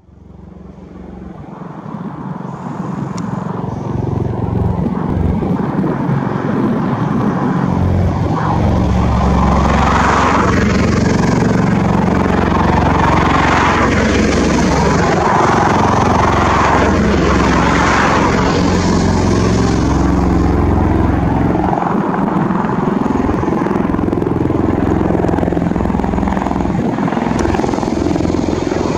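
Bell Boeing V-22 Osprey tiltrotor hovering in helicopter mode: its two proprotors and twin turboshaft engines make a loud, steady rumble. The sound fades in over the first few seconds, then swells and eases in slow waves as the aircraft turns.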